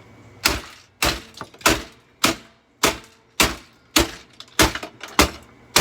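About ten hard, evenly spaced blows, roughly one every 0.6 s, striking the plastic housing of a Eureka The Boss bagged vacuum cleaner around its motor, breaking the casing until it cracks.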